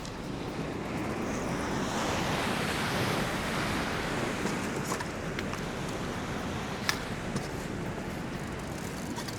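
Surf washing against the rocks: a broad wash that builds over the first couple of seconds and then eases as the swell passes, with wind on the microphone and a few small clicks.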